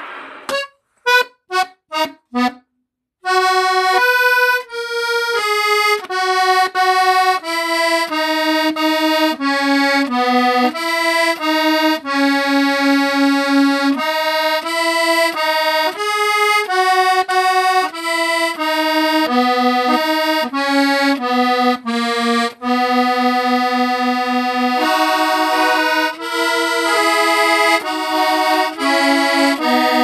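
Button-key melodeon playing solo: a few short stabbed notes, a brief pause about three seconds in, then a tune played continuously.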